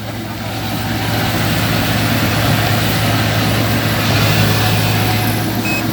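Kubota DC-35 combine harvester running steadily, a deep engine hum under a dense mechanical clatter. A reversing beeper starts at the very end.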